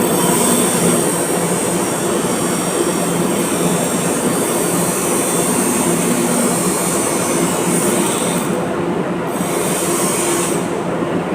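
Arc welding: the electric arc crackling and hissing steadily over a steady hum. The arc breaks off briefly about eight and a half seconds in, then again near the end.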